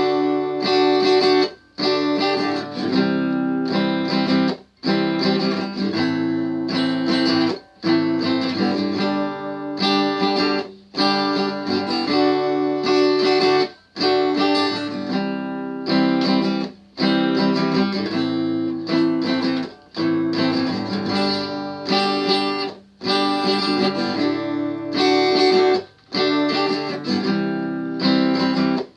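Guitar playing strummed chords in a repeating pattern, cut by a brief stop about every three seconds.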